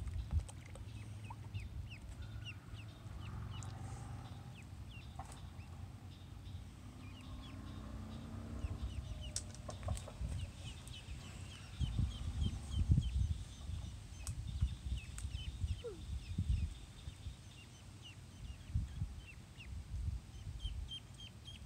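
Ducklings peeping, a steady run of short, high, downward-slurred chirps. Low rumbling thumps come and go through the middle and latter part.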